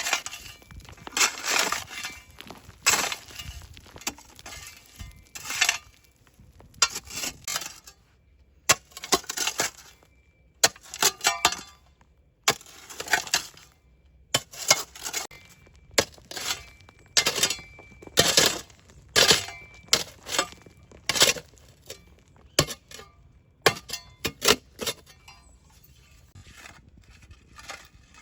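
Irregular series of short crunching and clinking sounds from hands-on kitchen food preparation, thinning out near the end.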